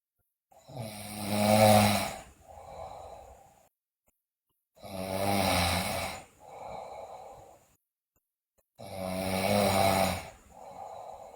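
A sleeping girl snoring loudly: three loud snores about four seconds apart, each followed by a shorter, softer breath sound and a brief silence.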